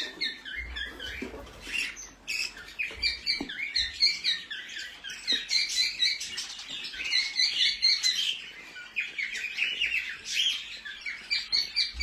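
Budgerigars chirping and chattering, a dense, unbroken run of short, high calls, with a few soft knocks.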